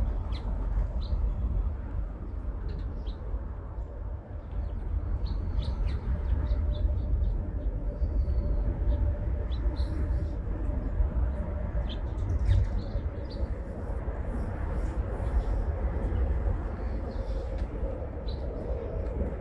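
Small birds chirping in short, scattered calls over a steady low rumble of outdoor background noise. A faint steady hum comes in about halfway through and grows a little toward the end.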